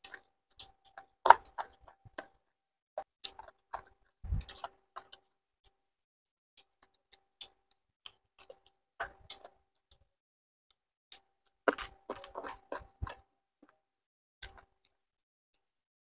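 Chewing and crunching on chicken feet: scattered sharp crunches and mouth clicks, bunched about a second in, around four seconds in, and again from about twelve to thirteen seconds.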